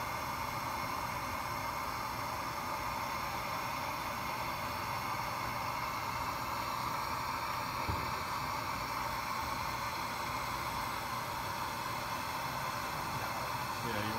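Steady hiss of lab equipment running, like fan or air-flow noise, with a low hum underneath, and a single short click about eight seconds in.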